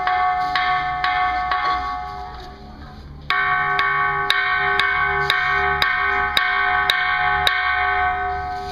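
Large hanging temple bell struck repeatedly with a wooden stick, about two strikes a second, each stroke ringing on. The first run of strikes dies away about two seconds in, and after a short pause a second run of about nine strikes begins.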